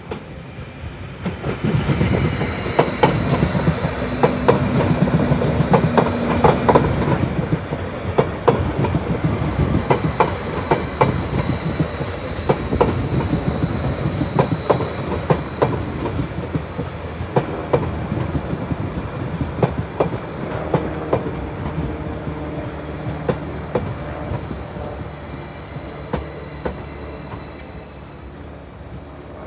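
A Greater Anglia multiple-unit passenger train running past at close range, its wheels clicking over rail joints and points, with thin high squealing tones above the rumble. The sound swells about a second in, is loudest over the first several seconds and slowly fades near the end.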